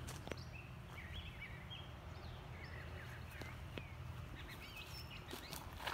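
Birds chirping, short scattered calls over a low steady outdoor rumble, with a few faint clicks.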